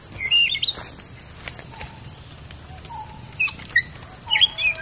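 Oriental magpie-robins giving short, squeaky, jagged chirps. One bout comes near the start and several more come in the last second and a half. Under them runs a steady high insect drone.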